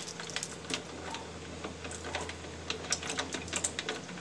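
Scattered clicks and scrapes of hard crab shell as live mud crabs are handled and cleaned in a basin of water, over a steady low hum.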